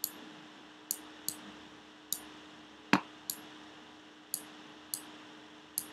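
Computer mouse clicking irregularly, about nine short clicks, one of them louder and fuller about three seconds in, over a faint steady hum.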